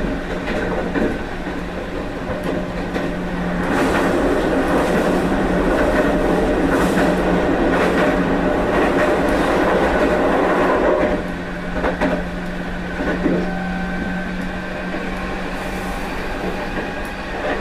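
Running sound of a Meitetsu 1030 series limited-express electric train, heard from the deck inside the car: wheels on rail and running gear taken from the 7500 series Panorama Car, with a steady hum under the rumble. The rumble grows louder about four seconds in and drops back about eleven seconds in.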